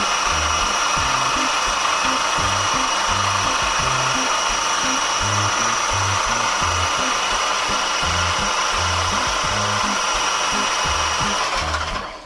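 A power tool running steadily with a high whine, cutting off suddenly near the end, over background music with a steady bass line.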